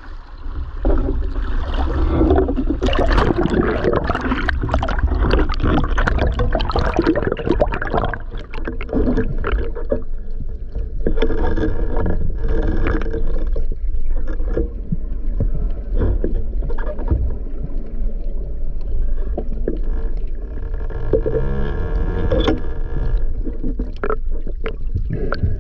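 Seawater sloshing and splashing around the camera at the surface with a heavy low rumble. About ten seconds in it turns into the duller, steadier rumble and crackle of sound heard underwater as the camera goes below the surface.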